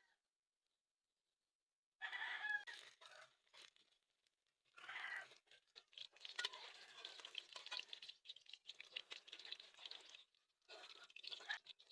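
A rooster crows once about two seconds in. From about five seconds on comes irregular crackling, like food frying in a pan.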